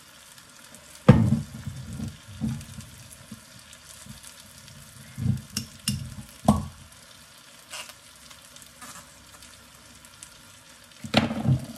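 Faint sizzling from a pot of floured beef stew in an enamelled cast-iron Dutch oven, broken by a few sharp knocks and clunks from a wine bottle and utensils being handled; the loudest knock comes about a second in.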